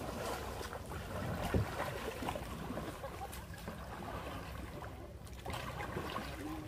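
Kayak paddles dipping and splashing in calm water, with water trickling and sloshing, and one louder dull thump about one and a half seconds in.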